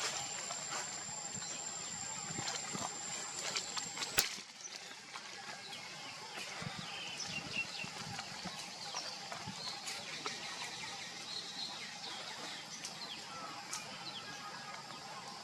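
Outdoor ambience: a steady high-pitched whine that stops abruptly with a click about four seconds in, followed by a background of faint chirps and scattered small clicks and rustles.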